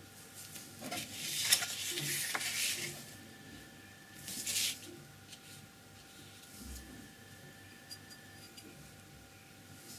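A sheet of paper scraping and rustling as it is slid and turned on a tabletop, lasting about two seconds near the start, then a shorter scrape about four seconds in, over a faint steady hum.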